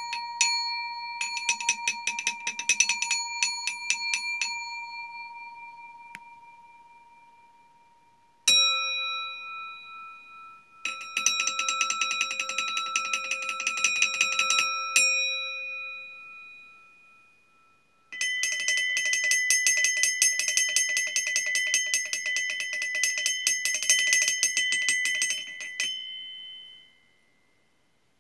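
Stainless steel bowls played like singing bowls: a ringing tone dying away, a single strike about a third of the way in, then two long stretches of rapid chattering taps over steady ringing tones of different pitch, which fade out near the end.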